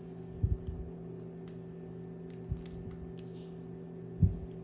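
Steady low hum under a few soft low thumps and faint small ticks, from hands picking crushed pistachios out of a glass bowl and sprinkling them onto chocolate-coated pretzel rods.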